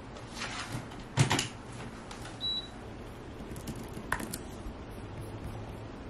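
Electric fan being handled and set up: a few knocks and clicks, the loudest about a second in, and a short high beep about two and a half seconds in, over a low steady hum.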